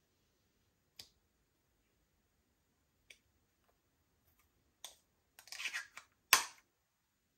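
A few sharp, isolated clicks, then a brief crackling rustle and one loud snap, from small objects being handled at close range.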